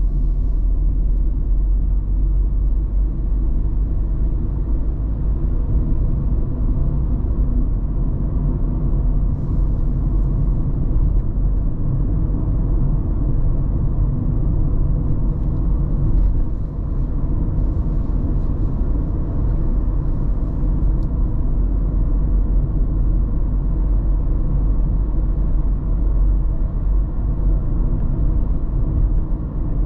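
A car driving at steady speed on a paved road: a continuous low rumble of tyre and engine noise.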